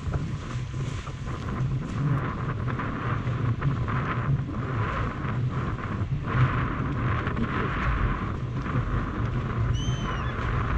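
Strong wind buffeting the microphone in a steady low rumble, with choppy water sloshing in surges against the hull of a small boat. A short chirp is heard near the end.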